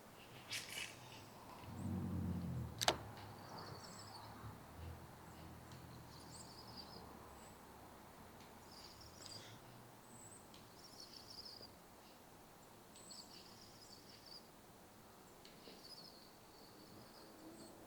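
A bird calling over and over in short high notes. A brief low rumble and one sharp click come about two to three seconds in.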